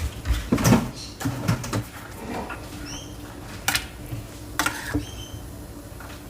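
Scattered knocks and light clatter of a cooking pot and kitchen utensils as chicken stock cubes go into a pot of soup, with two brief high squeaks in the middle.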